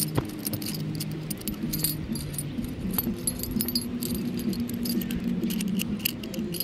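A 3.5 lb folding grapnel kayak anchor clinking and jingling in the hands as its metal flukes are folded shut for stowing, in quick, irregular clicks.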